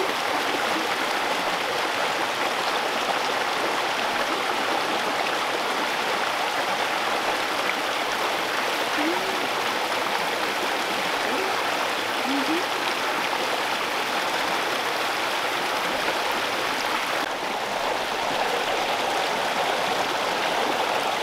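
Spring-fed stream running over rocks in small cascades: a steady, continuous rush of water.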